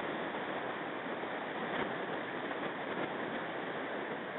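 Steady rushing of a river flowing over shallow riffles.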